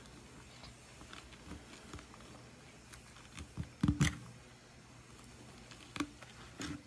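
Handling sounds from gloved hands working an iguana carcass on a metal tray: a few short, dull knocks, the loudest pair about four seconds in, then single ones about six seconds in and near the end.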